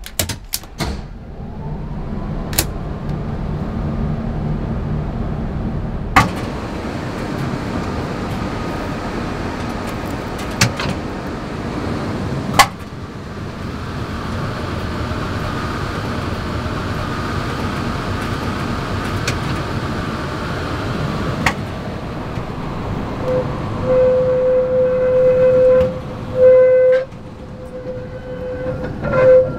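Tatra T3 tram running: a steady rumble broken by a few sharp clicks. Near the end a held tone sounds, breaks off and resumes several times.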